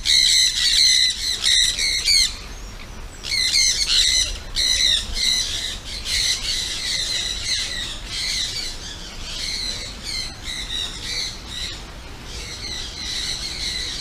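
A flock of small yellow parrots squawking in a racket of harsh, overlapping calls, repeated many times a second.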